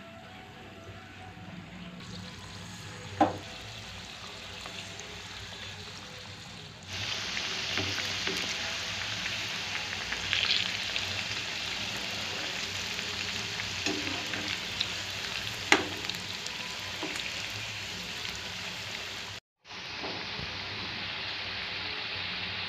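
Batter-coated idli pieces deep-frying in hot oil in a kadai: a steady sizzle that gets louder about seven seconds in. Two sharp clinks stand out, a few seconds in and again later.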